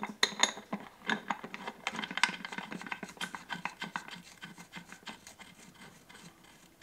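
Light metallic clicking and scraping of bolts being worked into the gear cover on a David Brown tractor engine. The clicks come thick and irregular at first and thin out toward the end.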